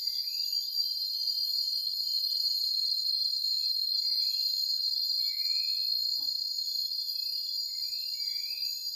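Insect chorus of crickets: a steady, high shrill drone. A handful of short, lower chirps are scattered through it.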